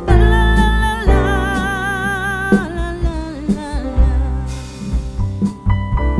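Background music: a song with a singing voice holding long notes with vibrato over bass and drums.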